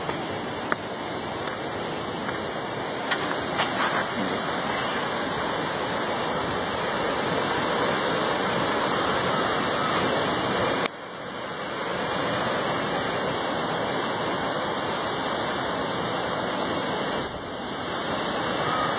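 Ocean surf washing over a rocky shoreline: a steady rush of water, with a brief sudden drop in level about eleven seconds in.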